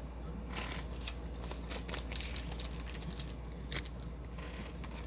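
Trading cards and their foil pack wrappers being handled: an irregular run of sharp clicks, snaps and rustles as cards slide against one another.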